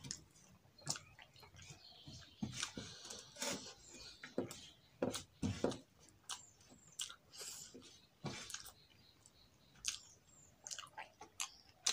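A man chewing a mouthful of rice and vegetable curry, in irregular short clicks and smacks, while his fingers gather the last rice from a steel plate.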